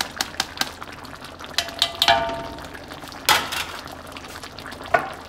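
Beef broth simmering and bubbling in a large metal wok, with many small pops. A few sharp knocks of a utensil against the wok are heard; one rings briefly a little after two seconds in.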